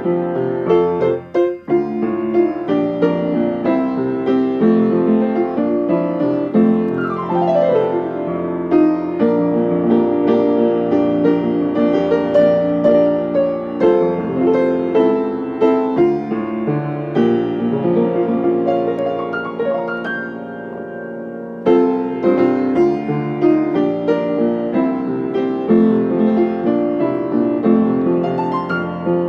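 Upright acoustic piano playing a hymn arrangement, with a quick downward glissando about seven seconds in. About two-thirds of the way through, a held chord fades away before the playing picks up again.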